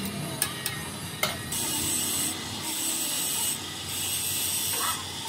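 A few sharp metallic clicks and knocks, then three bursts of compressed air hissing from an air blow gun, each about a second long with short breaks between them.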